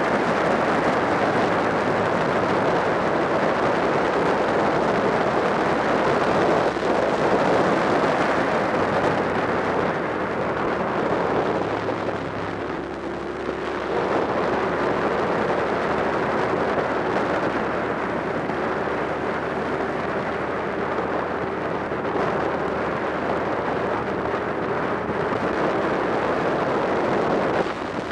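Wind rush and road noise on a motorcycle-mounted camera at riding speed, with the motorcycle's engine running underneath. The rush eases briefly about halfway through, after which a steady engine note stands out.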